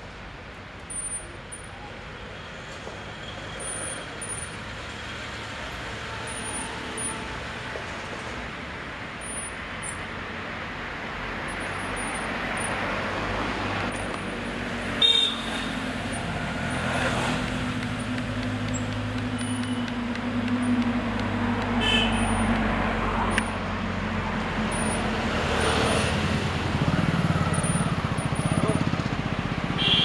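Road traffic running past: a steady traffic noise that builds through the second half as a vehicle's engine hum grows louder, with a sharp click about halfway through and a few short horn toots.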